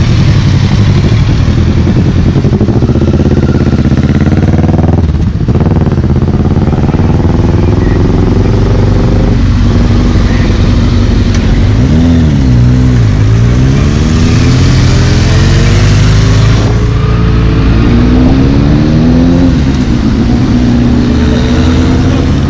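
Motorcycle engines running close by as bikes pass at low speed, their pitch rising and falling with the throttle several times. A steady drone of traffic runs underneath.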